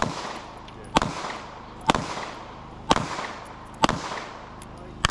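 .357 Magnum revolver fired in slow, steady succession: a shot about every second, each loud crack followed by a ringing echo.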